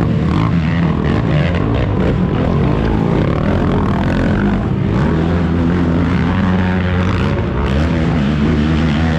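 Racing ATV engines running hard and revving, the pitch rising and falling throughout.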